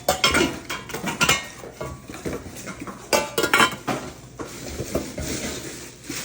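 Stainless steel pots and lids clattering and clinking as they are handled and set down, a dozen or so irregular metal knocks, some ringing briefly.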